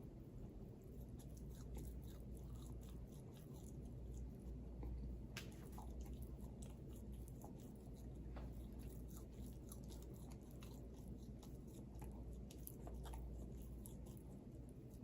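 Close-up chewing and mouth noises: many small scattered clicks and crunches, one sharper click about five seconds in, over a steady low hum.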